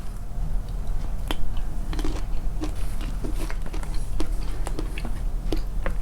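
Close-miked, amplified chewing: irregular crisp clicks and crunches of food in the mouth, over a steady low hum.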